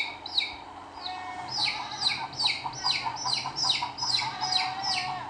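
Bird chirping: a steady run of high chirps, each one falling in pitch, about three a second.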